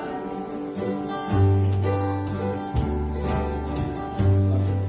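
Instrumental intro of a country song played live: acoustic guitar picking and strumming over strong low bass notes that change about every one and a half seconds, starting about a second in.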